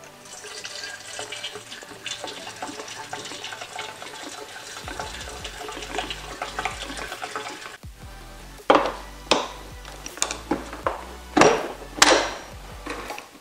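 Gasoline pouring in a steady stream from a plastic gas can's spout into a Venom X20 pocket bike's fuel tank. The pour stops about eight seconds in. Several sharp clacks and knocks follow as the can is taken away and the tank's filler cap is handled.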